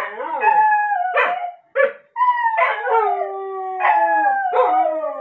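Two dogs, a beagle and a white-and-tan dog, howling together: long drawn-out howls, several in a row, each sliding slowly down in pitch, broken by short sharp yelps.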